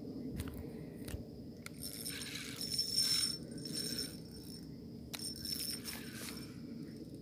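Spinning reel rattling and clicking while a hooked tilapia is fought. A few sharp clicks come first, then two bursts of metallic rattling, the louder one about two to three seconds in. A thin, steady high insect trill runs underneath.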